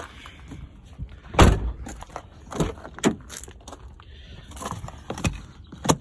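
Knocks, clunks and rattles of parts and panels being handled and moved inside a scrapped car, the loudest clunk about a second and a half in.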